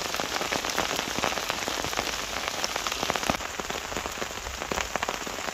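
Heavy rain falling steadily in woodland, a continuous hiss of rain with many sharp, separate drop hits close by.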